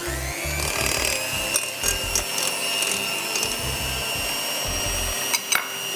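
Electric hand mixer starting up with a rising whine, then running at a steady speed as its beaters cream butter, brown sugar and egg in a glass bowl, with a few clicks.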